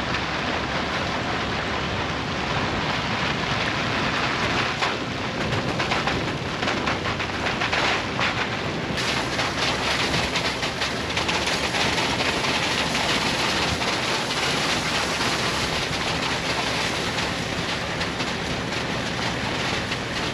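Rain and tyres running on a wet, muddy dirt road, heard from a camera mounted low on the side of a Toyota Land Cruiser, with wind buffeting the microphone. From about five seconds in it becomes a dense spattering of spray and raindrops.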